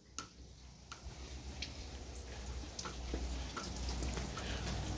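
A door latch clicks as the door is opened. Then come scattered light ticks, about one a second, over a low rumble that grows louder.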